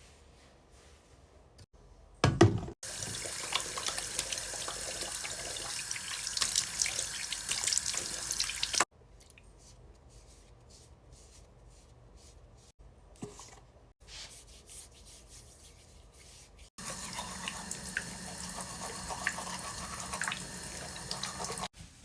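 Water running from a tap into a sink, a steady splashing hiss that starts with a knock about two seconds in and stops abruptly. It comes on again for the last few seconds, then cuts off.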